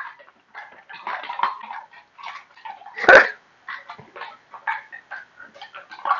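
Dogs whining and yelping in short, irregular bursts, with one louder, sharp yelp or bark about three seconds in.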